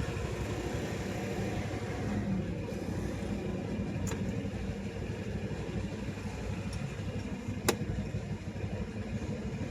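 Steady traffic at a road intersection: cars and motorbikes passing, with a continuous low engine and tyre rumble. A sharp click about three-quarters of the way through and a fainter one about halfway are the loudest moments.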